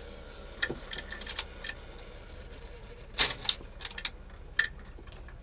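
Metal clicks and clacks of a wrench working the cover-plate nuts on a marine generator's raw-water impeller pump. A quick run of light clicks comes about a second in, then a few sharper clacks around three and four and a half seconds in.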